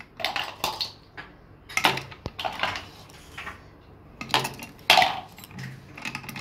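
Ice cubes and a metal spoon clinking and knocking against a glass jar of raw-mango drink as it is stirred, in scattered irregular clinks.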